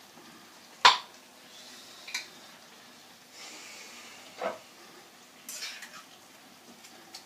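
Kitchen clatter of utensils and containers being handled: a sharp knock about a second in, then lighter knocks and clinks.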